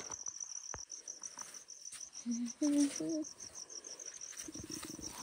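Cricket chirping steadily in a fast, even pulse. A faint voice is heard briefly about halfway through.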